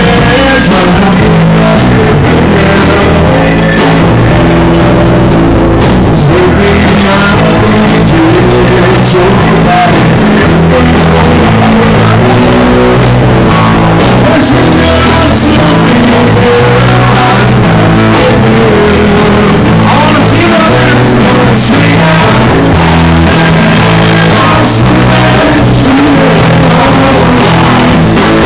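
Live rock band playing loud, with a man singing lead into the microphone over electric guitar and bass.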